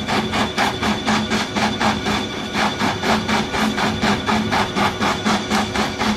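Tissue paper log saw running at speed, its blade cutting through the paper logs in a fast, even rhythm of about four cuts a second over a steady machine hum.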